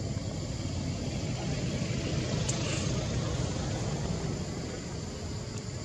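A steady low rumble of outdoor background noise, with a faint tick about two and a half seconds in.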